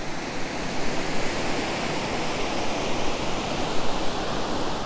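Ocean surf washing in a steady, even rush.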